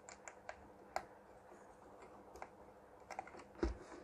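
Scattered light clicks and ticks from a hand handling a CRT television's circuit board and its parts, with a duller, louder knock near the end as the board is moved.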